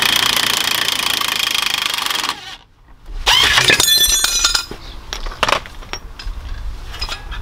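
An impact wrench running steadily for about two seconds, then stopping. About a second later comes a loud clatter of metal with ringing tones, then scattered clicks and knocks of tools and parts.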